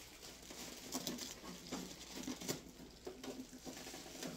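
Plastic garbage bag rustling and crinkling in irregular short crackles and clicks as a boxy stereo is worked into it.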